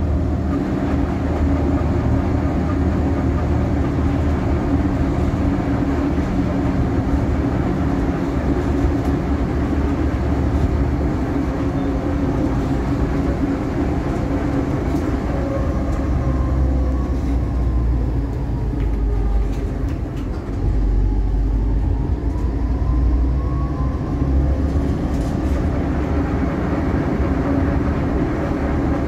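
Tatra T6A2 tram running, heard from on board: a steady low rumble of wheels on rail with a faint motor whine that falls in pitch about two-thirds of the way through and then rises again.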